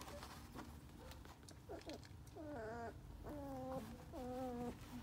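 Four-week-old sheepadoodle puppy whining: about four drawn-out, wavering cries, one after another, starting about two seconds in.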